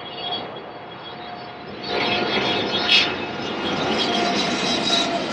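Jet airliner engines running with a steady whine over a broad rush, growing louder about two seconds in.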